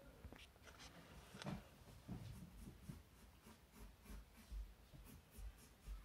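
Graphite pencil scratching faintly on sketchbook paper in a run of short, quick drawing strokes.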